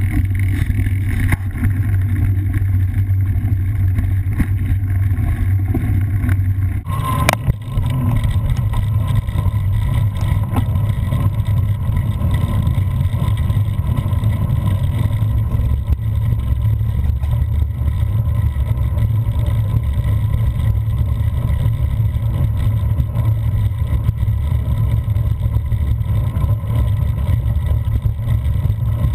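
Steady low rumble of wind buffeting and vibration on a handlebar-mounted GoPro as a cyclocross bike rolls along a narrow gravel path. About seven seconds in there is a sharp click and the rumble changes abruptly.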